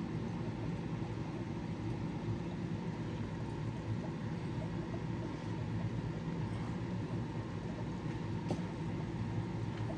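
Steady low hum and rush of fish-room aquarium equipment running continuously, with one faint click about eight and a half seconds in.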